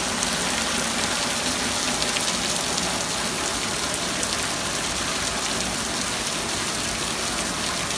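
Steady rain falling on hard surfaces: a dense, even hiss with many small drop taps.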